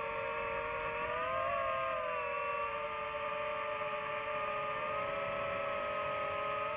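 DJI FPV drone's motors and propellers whining steadily, the pitch rising a little about a second and a half in, then holding with small shifts.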